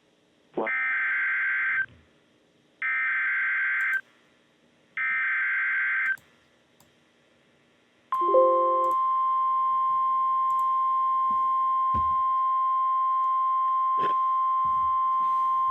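Emergency Alert System SAME header: three identical one-second bursts of rapid, buzzy data tones, about a second apart. About 8 s in, the NOAA Weather Radio warning alarm tone starts: one steady high beep at 1050 Hz that signals a warning is about to be read.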